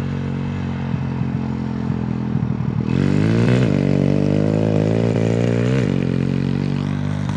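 125cc pit bike engine running, then revving up about three seconds in. The pitch dips briefly, holds higher and falls back about six seconds in.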